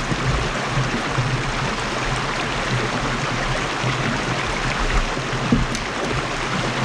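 River water rushing over shallow rapids around the kayak: a steady, even rush.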